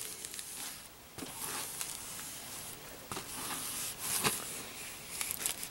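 Hot covering iron sliding over thin plastic laminating film on a foam wing. The film gives a faint rustling crackle, with a few soft clicks.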